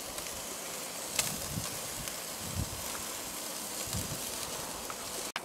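Sausages and meat sizzling on a charcoal grill: a steady, soft hiss, with a short click about a second in.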